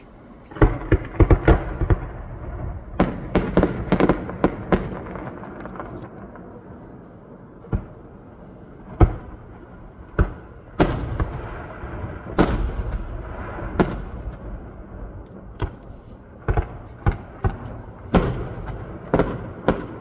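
Fireworks display: aerial shells bursting in sharp bangs, fired in quick clusters during the first few seconds and then at more spaced intervals, over a continuous rumble.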